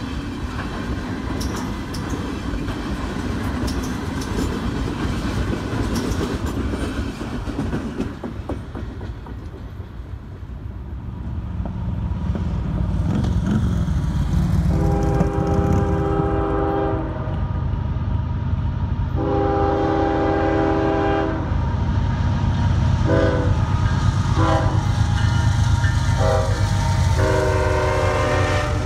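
A freight train rolls past with its wheels clacking over the rail joints. Then diesel freight locomotives approach with a low engine rumble, and the lead unit sounds its air horn in two long blasts, a few short ones and a final long blast: a grade-crossing warning.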